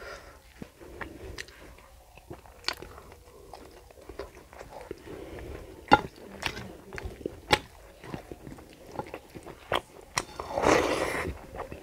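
Close-up sound of a person eating rice and curry by hand: chewing and mouth sounds with many sharp clicks. Near the end there is a louder, longer noisy burst as a handful of rice goes into the mouth.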